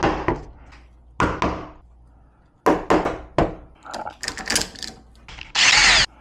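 Knocks and clicks of tools and lock hardware being handled against a door, then a brief burst of a power drill spinning up near the end.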